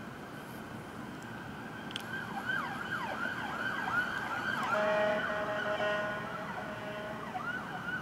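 Police car's electronic siren on a fast yelp, its pitch sweeping rapidly up and down. About five seconds in it gives way to a steady air-horn blast, the loudest part. The yelp briefly returns near the end.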